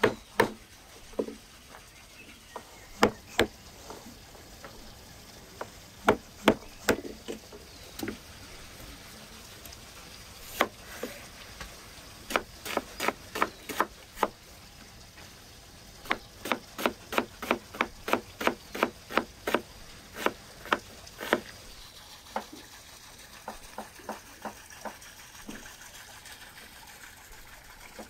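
A wooden mallet knocks chestnuts on a wooden cutting board to crack their shells, in single knocks at uneven intervals. Later a cleaver chops a red onion on a wooden board in a quick, even run of knocks, about three a second.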